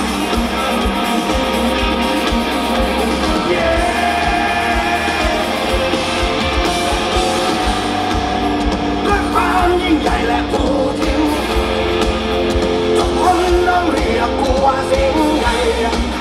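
Rock band playing live, with a lead vocal sung in Thai over the band and a steady drum beat.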